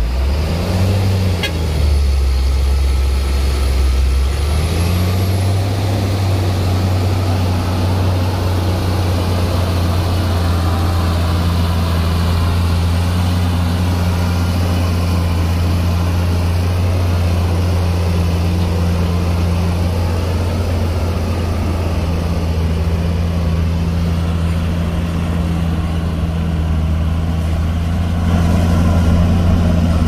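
Diesel engine of a heavy earthmoving machine running steadily under load. Its pitch steps up about five seconds in and then holds.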